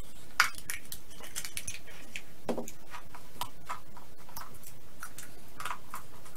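Plastic Easter eggs handled and pulled open, an irregular run of small plastic clicks and rattles with a sharper snap about half a second in.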